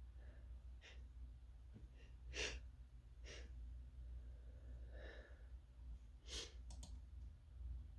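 A person with a cold in a sneezing fit: a series of short, sharp breaths and sniffs. The loudest comes about two and a half seconds in, and another sharp one comes near six and a half seconds.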